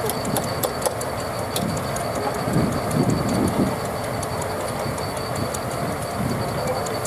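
Steam traction engine belt-driving a circular saw bench, running steadily with a thin high whine and a fast, irregular ticking. It swells louder for about a second partway through.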